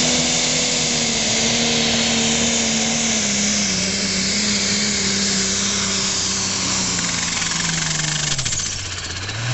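Diesel John Deere pulling tractor under full load dragging a sled, its engine note sinking slowly as the sled bogs it down. It drops sharply about eight and a half seconds in as the pull ends and the throttle comes off.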